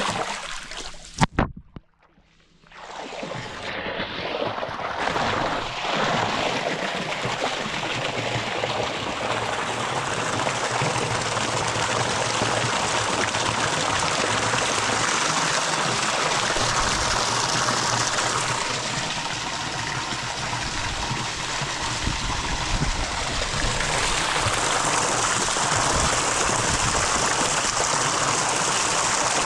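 Water flowing steadily, a continuous rush of running water. About a second in there is a click and a brief drop to near quiet before the flow comes back in.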